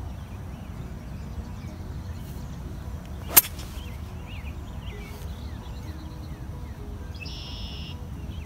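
A three hybrid striking a golf ball: one sharp crack about three and a half seconds in.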